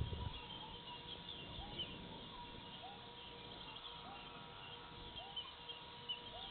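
A faint animal call, a short note rising then falling, repeated about once a second, with scattered high chirps over a steady electrical hum. A brief low thump right at the start.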